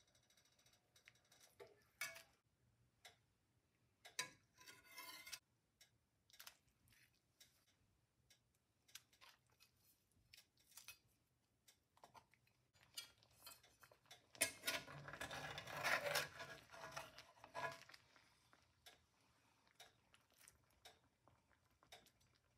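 Metal spatula and tongs clinking and scraping against a cast-iron skillet as breaded chicken breasts are shifted in a pan sauce and lifted out, with scattered short clicks and a longer, busier stretch of scraping about two-thirds of the way through.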